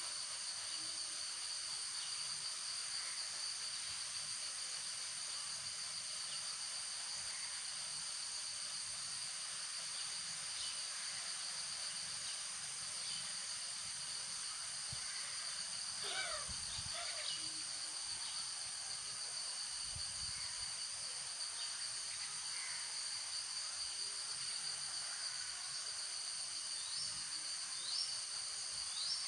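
Steady high-pitched drone of an insect chorus, with a few short chirping calls breaking in around the middle and again near the end.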